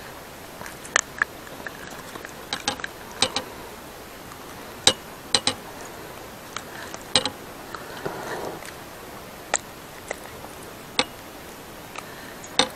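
Irregular sharp clicks and light taps, a dozen or so spread out, as a metal spoon lure and its hook are worked free from a pike's jaw by hand. A brief soft rustle comes about eight seconds in.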